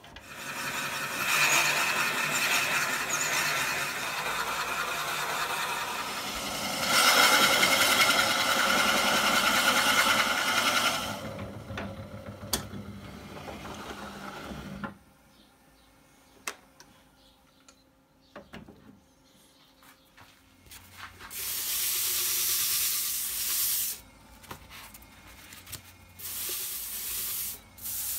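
JET JWL-1221VS wood lathe spinning a vase blank while a drill bit in the tailstock chuck bores into its end grain: a loud squealing, hissing cut that runs for about fifteen seconds, loudest in the middle, then stops suddenly. From about twenty seconds in, a sanding block rasps on the spinning wood in two short bouts over a faint motor hum.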